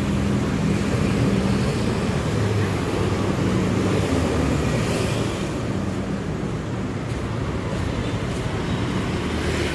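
Street traffic: vehicle engines running close by over a steady road noise, easing somewhat about halfway through.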